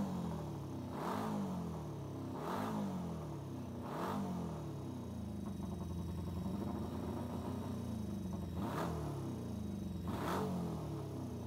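Honda 350 motorcycle engine idling, blipped on the throttle five times. Each rev rises and falls quickly: three come in the first four seconds and two near the end, with a steady idle between.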